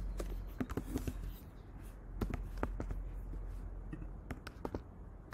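Computer keyboard typing: irregular keystroke clicks of uneven strength, with short pauses between runs.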